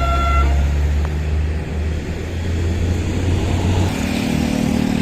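A tour bus's Basuri telolet horn ends its last held note about half a second in. The bus engine runs on with a deep, steady drone as it goes by. About four seconds in, the drone gives way to the higher hum of another vehicle.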